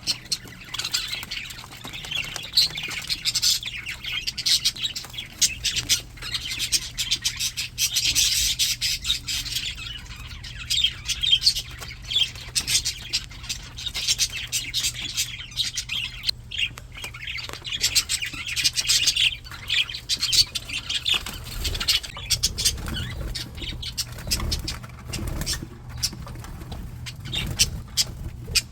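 A flock of English budgies chattering: a dense, unbroken warble of many overlapping chirps and squawks. Soft low thuds join in during the last few seconds.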